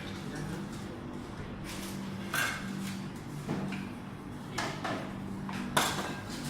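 A few sharp knocks and clatters of kitchen utensils and containers, the last and loudest near the end, over a steady low hum.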